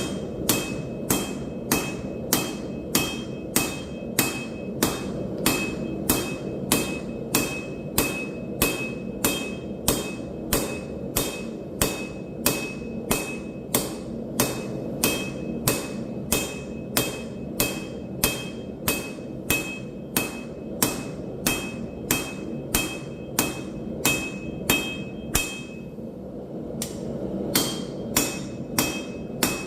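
Steady rhythm of hammer blows on steel over an anvil, about one and a half strikes a second, each with a bright ringing tone; the blows pause briefly near the end, then resume. A steady low rush runs underneath.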